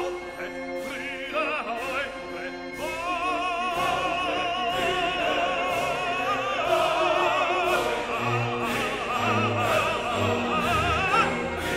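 Background music: a classical, operatic piece with a voice singing with vibrato over an orchestra.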